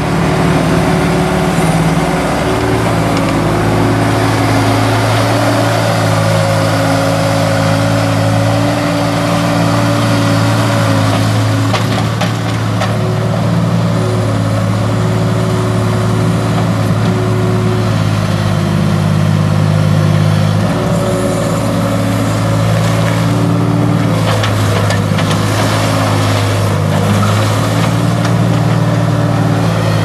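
2005 Case 435 skid steer's 3.4 L three-cylinder turbo diesel running steadily while the machine is driven and turned. The engine note shifts slightly in pitch a couple of times, and scattered knocks and rattles come through in the second half.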